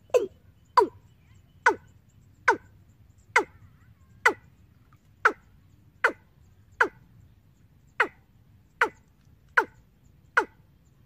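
Recorded bird-lure call (the 'ayam tembaga' track) played through horn loudspeakers from a bird-trapping amplifier: a short, sharp call that drops steeply in pitch, repeated about every 0.8 seconds.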